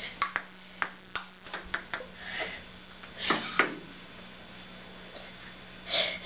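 A ping-pong ball ticking off the paddles and the table in a quick rally: about half a dozen sharp clicks over the first two seconds, then two short, softer noises and a lull.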